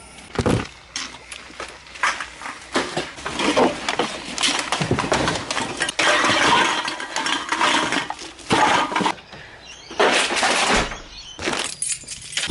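Handling and movement noise: irregular knocks, clicks and rustling clatter as someone moves about and handles things.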